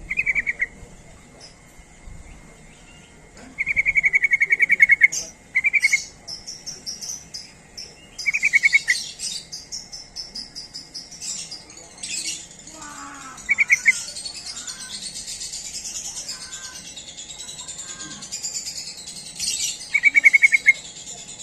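Yellow-vented bulbul (trucuk) calls. Short, fast, rattling trills come every few seconds, mixed with busier, higher-pitched chattering calls, over a faint steady high insect-like hiss.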